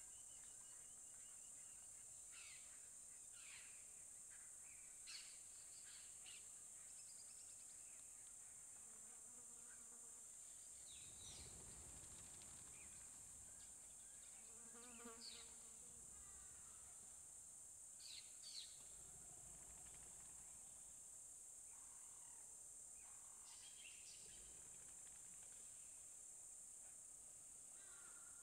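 Faint, steady high-pitched insect drone, with scattered short bird chirps over it and a brief low rumble about eleven seconds in.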